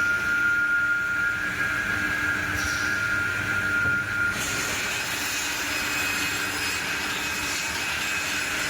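CNC panel cut-off saw running, with a steady high whine over the machine noise that stops about four seconds in.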